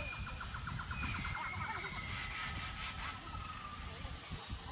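Wind rumbling on the microphone in open country, with birds calling: a fast trill during the first couple of seconds and a few thin whistles.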